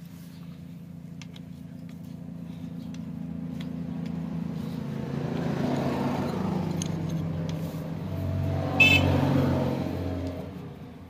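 A road vehicle's engine running past, growing louder through the middle and fading near the end. About nine seconds in, a single sharp metallic clink rings out, a steel socket knocking on the drain bolt.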